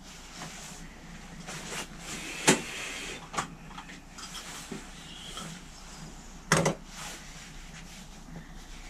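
Scattered clicks and knocks of tools and small parts being handled on a workbench: a sharp knock about two and a half seconds in, another about a second later, and a loud double knock about six and a half seconds in, with lighter clicks between.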